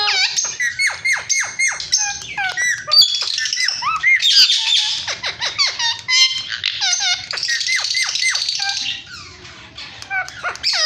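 Indian ringneck parrot calling: rapid runs of short, downward-sweeping whistled chirps mixed with harsh squawks, with a brief lull near the end.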